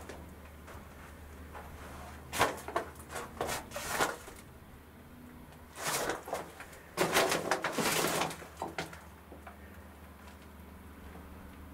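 Footsteps crunching and scuffing on loose rubble, leaves and broken wood on a brick bunker floor, in two bursts of a couple of seconds each, over a low steady hum.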